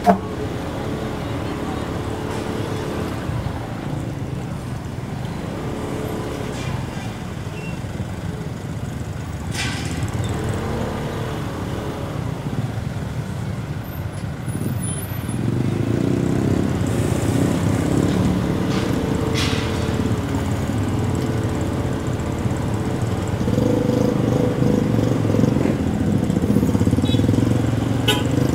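Motorcycle engine and road noise while riding, steady and continuous, getting louder about halfway through and again near the end.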